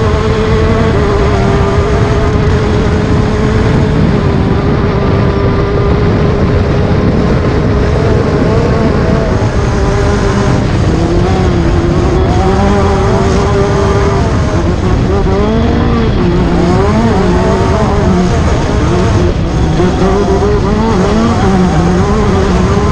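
Class 10 off-road race car engine running hard at high, steady revs. From about ten seconds in, the revs rise and fall again and again. A constant low rumbling noise runs beneath it.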